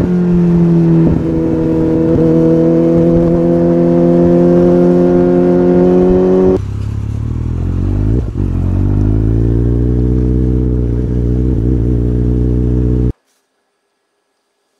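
Kawasaki ZX-14R's inline-four engine running at steady revs, then the sound changes abruptly to a deeper, muffled engine note that dips and then climbs as it accelerates. It cuts off suddenly near the end, leaving silence.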